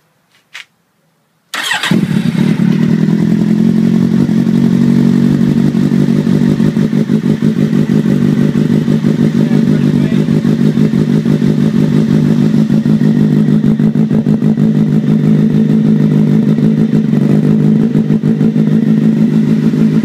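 A brief click, then a Kawasaki Z800's inline-four engine starts about a second and a half in and settles straight into a steady idle through an aftermarket IXIL dual-outlet exhaust.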